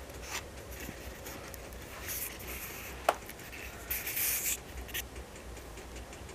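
Wood fire burning in an Invicta Siam cast-iron fireplace, crackling with scattered small clicks. There is one sharp pop about three seconds in and short spurts of hiss around two and four seconds.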